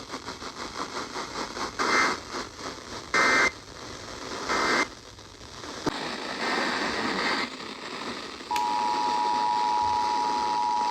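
EAS weather-radio broadcast between alerts over radio hiss. Three short digital data bursts (SAME tones) mark the end of one warning. About three seconds before the end, a steady two-tone attention alarm starts, the alert signal for the next warning.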